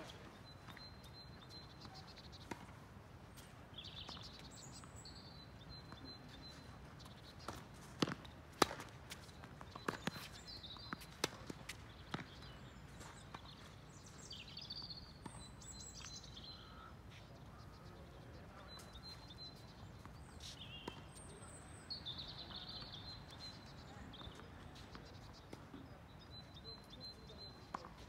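Tennis balls struck by racquets and bouncing on a hard court: a handful of sharp thwacks, most of them close together about a third of the way in. Small birds chirp throughout over a steady low outdoor background.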